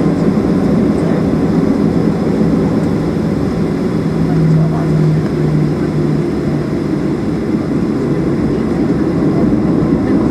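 Steady cabin noise inside a Boeing 737-800 on the ground after landing: its CFM56-7B engines running with a low rumble, typical of taxiing. A low hum swells briefly about four seconds in.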